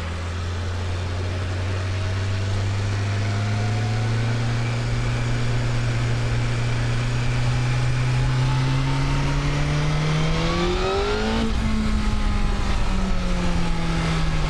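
BMW S1000RR inline-four sport-bike engine under way, revs climbing slowly and steadily for about ten seconds, with wind rush. About eleven seconds in the engine note breaks sharply, then the revs slowly fall.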